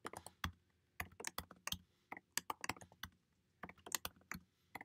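Computer keyboard typing in short bursts of keystrokes with brief pauses between them.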